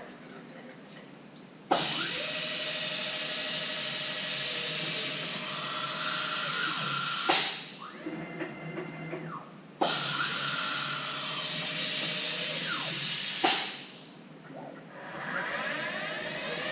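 CNC mill running a machining program on T-slot nuts: a loud hiss of cutting starts abruptly, runs with a steady whine and pitch sweeps, spikes and drops away, then the same cycle repeats a second time.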